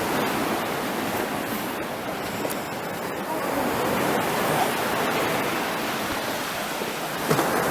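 Sea surf washing onto the beach: a steady rushing hiss of waves.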